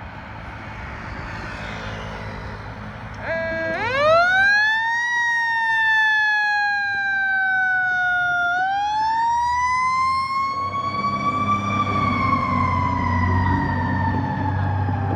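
Federal Q2B mechanical siren on a fire ladder truck winding up steeply to a high wail about four seconds in, sagging slowly in pitch, then rising to its peak again and slowly falling off. Just before it spins up there is a short air-horn blast, and the truck's engine rumble grows toward the end.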